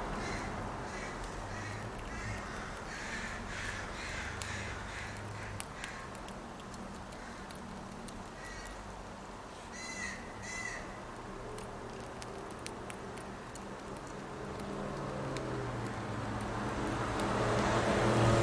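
Crow cawing: a quick run of fainter caws in the first few seconds, then two loud caws about ten seconds in.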